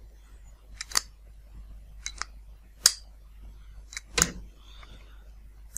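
Hand blind-rivet tool (pop riveter) clicking as a pop rivet is seated in its nose and pressed into place on a metal plate: a handful of short, sharp, irregular metallic clicks, the loudest about four seconds in.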